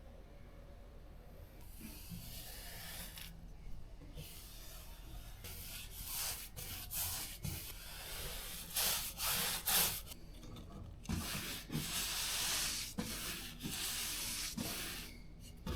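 Hand sanding: sandpaper rubbed over a surface in repeated, irregular strokes with short pauses, beginning about two seconds in.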